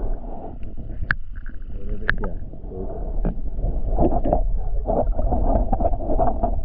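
Muffled water sloshing and gurgling with scattered knocks, heard through a camera held at or under the water's surface, with a constant low rumble; the sloshing grows choppier about four seconds in.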